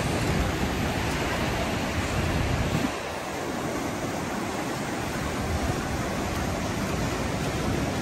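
Steady rush of ocean surf washing around rocks, with wind buffeting the microphone; the low rumble of the wind drops away about three seconds in.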